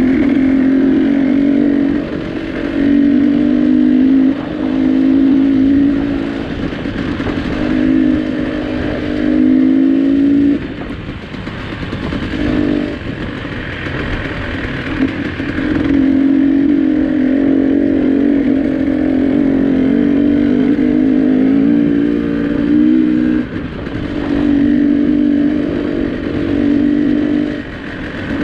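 Vehicle engine under way, its note climbing slowly and dropping back at each gear change. About eleven seconds in it eases off for a few seconds, then pulls again.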